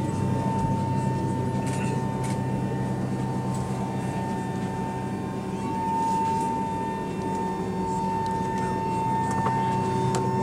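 Steady machinery hum with a constant high whine inside the cabin of a Boeing E-3 Sentry AWACS parked on the ground, with a few faint clicks.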